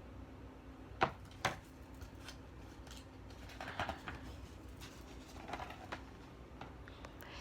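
Quiet room tone with two faint sharp clicks about a second in and a few soft rustles later, like paper or a book being handled.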